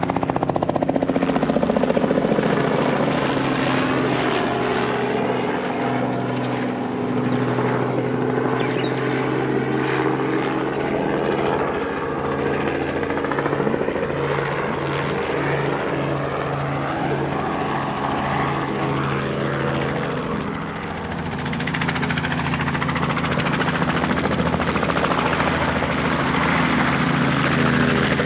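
Sightseeing helicopter's rotor and engine running steadily, with an even throbbing pulse from the blades.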